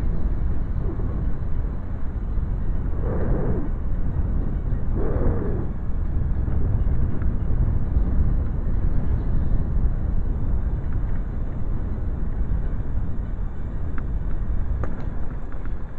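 Steady low rumble of wind on the microphone and tyre noise from a camera on a moving bicycle. Two brief louder sounds come about three and five seconds in.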